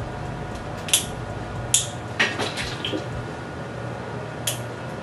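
Grooming scissors snipping dog hair: a few sharp metallic snips about a second apart, with a short quick run of snips and clatter about two seconds in, over a low steady hum.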